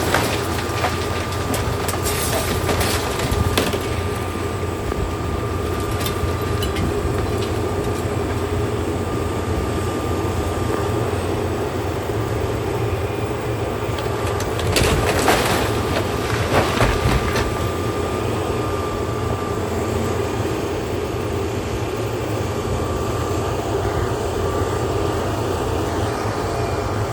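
Heavy demolition machinery running steadily with a thin steady whine, while building debris cracks and crashes as it is torn down, in bursts around two to four seconds in and again around fifteen to seventeen seconds in.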